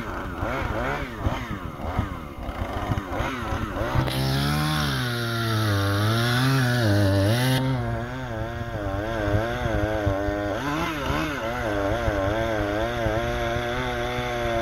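Chainsaw cutting through a fallen tree trunk, the engine pitch rising and falling as it revs and bogs into the cut. From about four seconds in to about seven and a half it runs lower under load, with a loud hiss over it.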